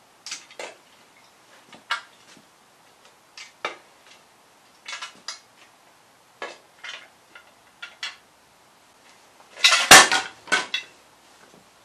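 Scattered sharp metallic clicks and clinks from a vintage Kawasaki F7 175cc two-stroke dirt bike as hands work its key and handlebar controls, with a louder clatter of knocks about ten seconds in. The engine is not running.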